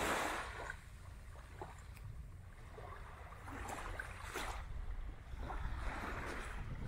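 Small waves washing onto the shore in slow, irregular swells, over a steady low wind rumble on the microphone.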